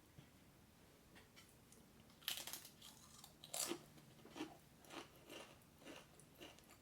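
Faint crunching as a Pringles potato chip dipped in ketchup is chewed: a series of short crisp crunches starting about two seconds in.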